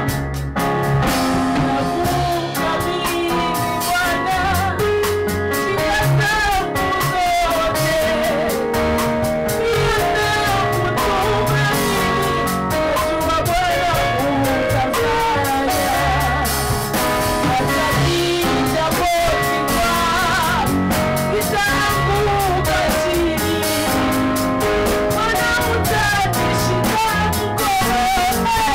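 A woman singing a gospel worship song into a microphone, her voice bending up and down in pitch over a live band of held keyboard chords and drum kit.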